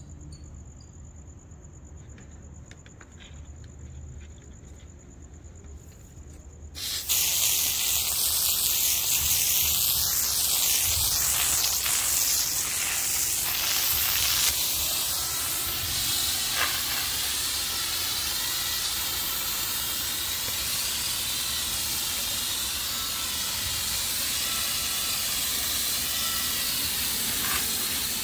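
Crickets trill steadily, then about seven seconds in a hard spray of water from a hose starts with a sudden loud hiss and keeps going, splashing on concrete and the tank. The water is rinsing paint remover and loosened paint off a steel scuba tank.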